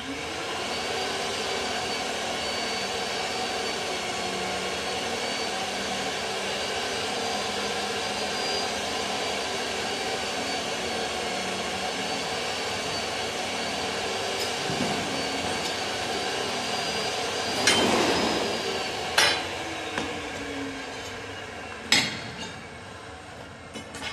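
Rothenberger electric pipe-threading machine starting up and running steadily with a constant whine as it cuts a thread on steel pipe. About eighteen seconds in it is switched off and its pitch falls as it spins down, with three loud metal clanks over the next few seconds.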